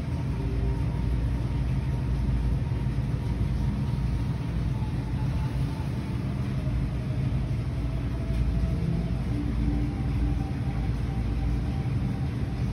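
Steady low rumble and hum of an aquarium hall's background ambience, with faint fragments of distant voices now and then.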